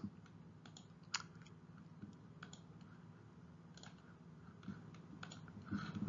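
A few faint, scattered clicks on a computer, the clearest about a second in, as repeated attempts to advance a presentation slide fail to move it on. A low steady hum runs underneath.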